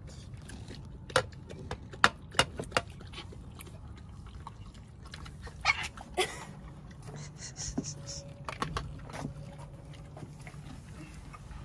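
Mini pig eating pumpkin guts from a bowl. There are sharp clicks and knocks, several in the first few seconds and two more about six seconds in, over a low steady hum.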